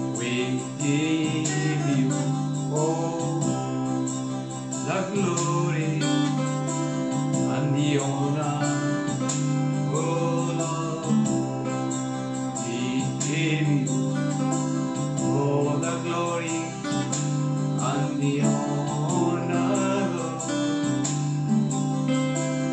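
A man singing a gospel praise song while accompanying himself on a steel-string acoustic guitar, the strummed and picked chords ringing steadily under his voice.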